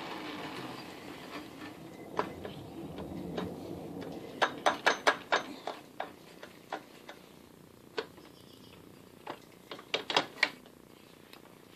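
Sharp metallic clicks and light scraping as the reaming cutter on the shaft is worked by hand through a bronze bearing. The clicks come in a quick run of about five near the middle and another bunch near the end, with single clicks between. A low rumble fades out over the first few seconds.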